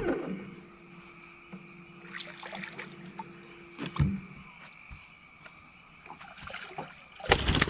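Angler reeling in a hooked bass at night against faint steady night-insect tones, with a low steady hum through the first few seconds and a knock about four seconds in. Near the end comes a short loud burst of splashing as the fish is brought to the boat.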